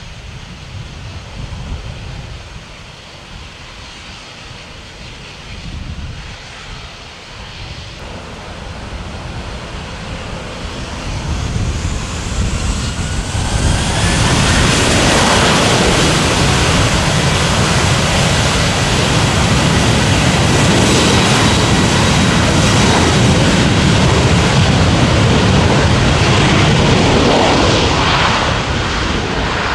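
Boeing 737-800 jet engines (CFM56-7B turbofans) spooling up, with a rising whine over a few seconds about halfway through. They then run loud and steady at high power, easing slightly near the end.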